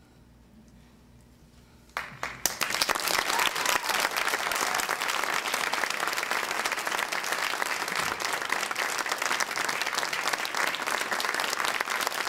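Quiet for about two seconds, then a theatre audience breaks into applause and keeps clapping steadily.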